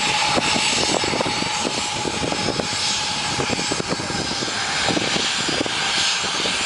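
Boeing 737's twin jet engines running at taxi power as the airliner turns to line up on the runway: a steady jet roar and rush with a high steady whine, and a fluttering, uneven low end.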